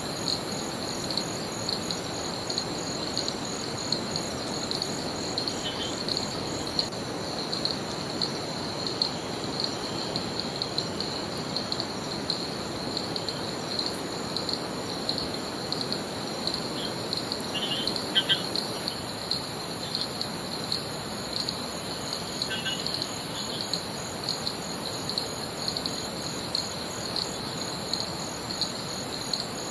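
Rainforest insects trilling steadily in an even, pulsing rhythm over a constant low rushing background. A few short bird chirps break in, mostly about two-thirds of the way through.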